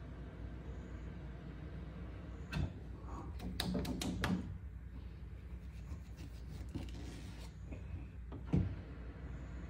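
A few knocks and clicks over a steady low hum: one sharp knock, then a quick cluster of clicks and knocks, then another sharp knock near the end.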